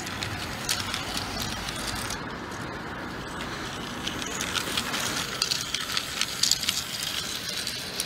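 Rail King battery-powered toy train running on its plastic track, a steady rattle with quick clicking from the wheels on the rails. The clicking grows busier and louder about halfway through as the train passes close by.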